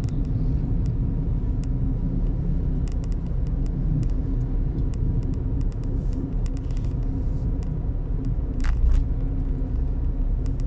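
Steady low rumble of a car's engine and road noise heard inside the moving car's cabin, with a faint steady hum and a few faint ticks. A short louder sound comes about nine seconds in.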